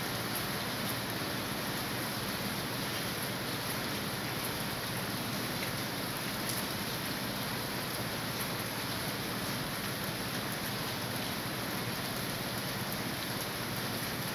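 Steady, heavy rain falling, an even hiss with scattered small drop ticks.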